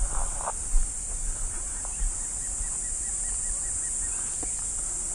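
Steady high-pitched drone of insects, over a low rumble.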